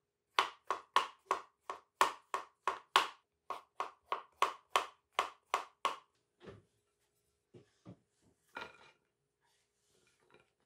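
Chef's knife slicing button mushrooms on a bamboo cutting board: a steady run of knocks, about three a second, for some six seconds, then a few softer scattered knocks.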